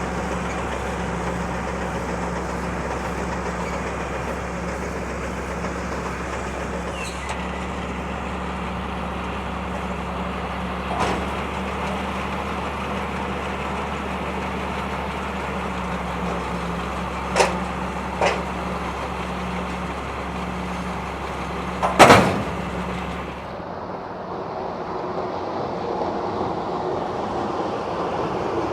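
Tractor engine running steadily, with a few sharp knocks, the loudest near the end. Just after it the engine sound drops away, leaving a wind-like rush.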